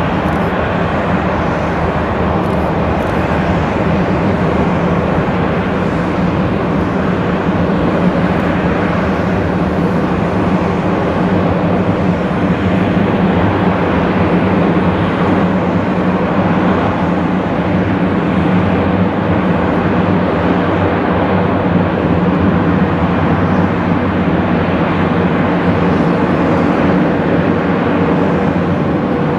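Antonov An-70's four D-27 propfan engines, each with contra-rotating propellers, running steadily at taxi power. The sound is loud and even, with several low steady tones from the propeller blades.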